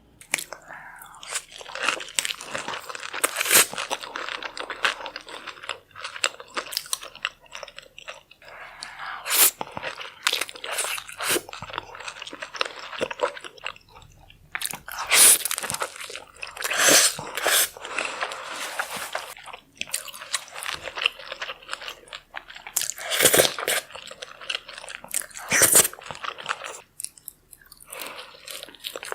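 Close-miked eating sounds: crunching and chewing of fried seafood, with irregular crackles and bites throughout.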